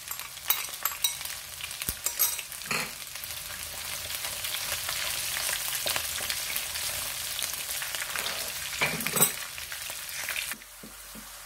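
Ginger paste and green chillies sizzling in hot oil in a kadai, stirred with a wooden spatula, with a couple of knocks against the pan. The sizzling drops off sharply near the end.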